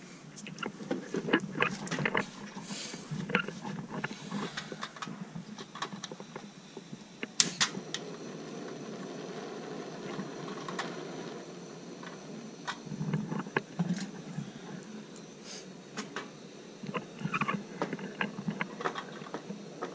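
Iwatani ZM-1 portable butane cassette stove being handled: clicks and metal knocks as it is set up. A sharp ignition click comes about seven seconds in, then the burner's steady hiss of burning gas. More knocks come near the end as a pot is set on it.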